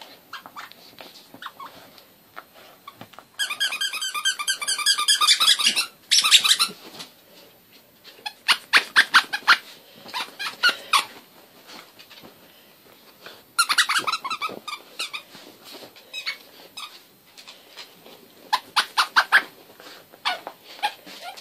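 A dog chewing a squeaky plush toy, setting off its squeaker in bursts of rapid high squeaks. The longest burst lasts about three seconds, and quiet gaps separate the shorter bursts that follow.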